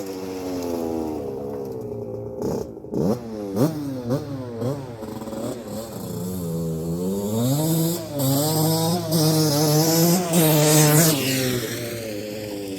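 Freshly rebuilt 1981 Suzuki RM125X's single-cylinder two-stroke engine revving under a rider: quick blips rising and falling in the first few seconds, then held at higher revs for a few seconds before the pitch drops near the end.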